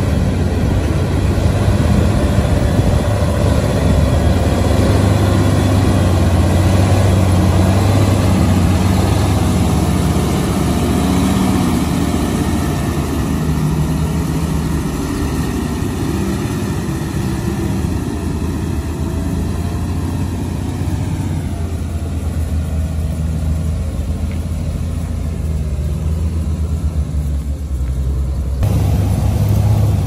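Diesel engine of heavy construction machinery running steadily, its engine speed shifting at times, with a sudden change in sound near the end.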